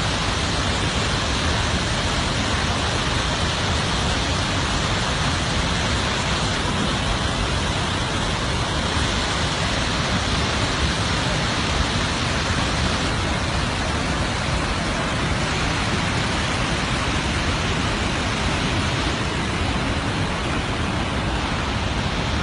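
Aharbal Waterfall's water pouring and rushing in a steady, even roar of noise, unbroken and unchanging.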